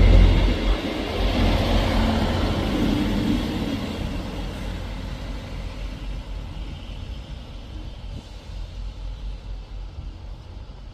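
Class 158 diesel multiple unit moving away along the track: the rumble of its diesel engines and wheels is loudest as it clears the platform, then fades steadily as it recedes.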